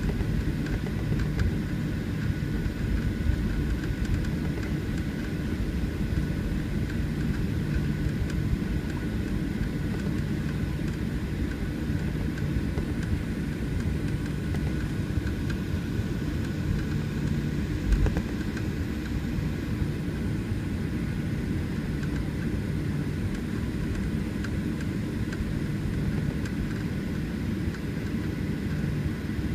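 Cabin noise of a Boeing 737-800 taxiing, its CFM56-7B engines at idle thrust: a steady low hum with a faint high tone above it. A single thump comes a little past halfway.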